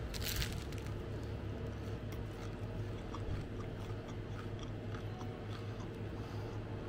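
A person biting into a focaccia sandwich, with a crackly crunch in the first half second, then chewing with faint, scattered mouth clicks over a steady low hum.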